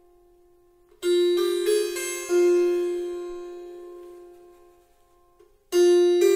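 Piano music: notes struck about a second in and again a little later, ringing out and fading almost to silence, then new notes coming in near the end.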